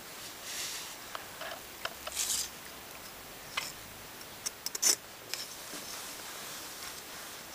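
A cat batting at a clear plastic ruler on a woven rug and hard floor: scattered light clicks and scrapes with soft rustling, the sharpest run of clicks about five seconds in.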